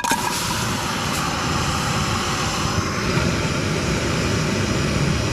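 A click, then the steady hiss of a portable gas camp stove's burner running, just lit to heat the frying oil.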